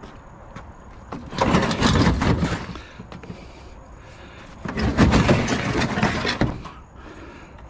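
Scrap metal being handled and set down: two loud clattering, scraping bursts, each lasting about a second or more, roughly three seconds apart.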